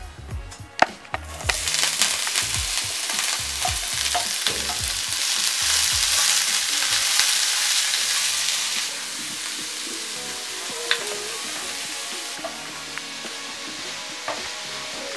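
Noodles stir-frying in a hot pan: a loud sizzle that starts suddenly about a second in, after a few utensil clicks, and eases off after about nine seconds while the stirring goes on.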